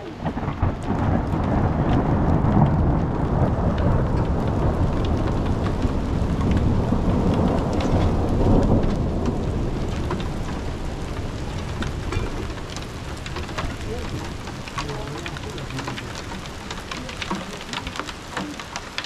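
A long roll of thunder swells about half a second in, stays loud for several seconds, then fades away. Steady rain patters throughout, with sharp drop hits that grow more noticeable as the thunder dies down.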